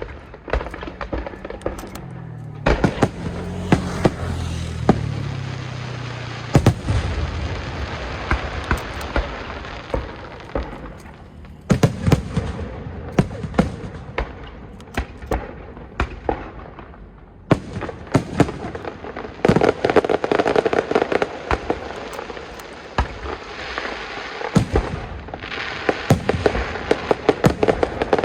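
Aerial fireworks going off: a rapid series of shells bursting with sharp bangs and dense crackling.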